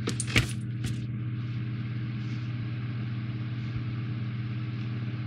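A steady low machine hum, with a few brief handling clicks and rustles in the first second as the paper instruction sheet is picked up.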